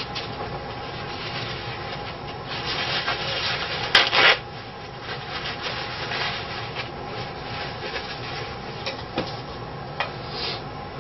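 Stiff paintbrush scrubbing and rubbing in short strokes, growing louder to a sharp, loud scrape about four seconds in, then softer strokes and a few light clicks near the end, over a steady faint room hum.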